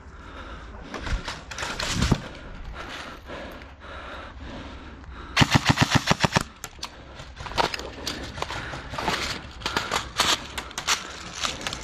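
Airsoft gun firing a rapid full-auto burst of about nine shots lasting just over a second, with scattered single airsoft shots before and after it.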